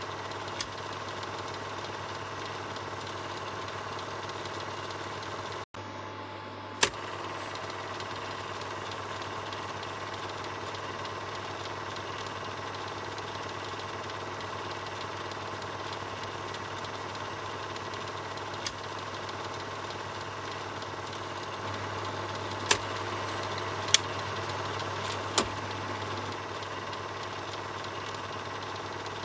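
Film projector running with a steady mechanical whir over a low hum, with occasional sharp clicks. The sound cuts out for an instant about six seconds in.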